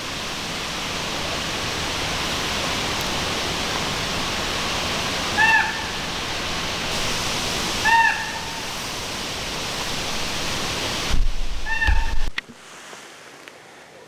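Steady rushing of wind through the woods, with three short pitched bird calls, each bending down at the end, spaced a few seconds apart. Near the end a low thump, then the sound drops away suddenly.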